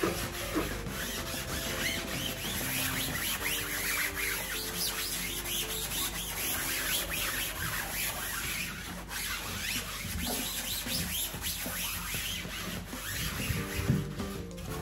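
Scouring sponge scrubbing a stainless steel sink: a continuous scratchy rubbing, with quiet background music underneath.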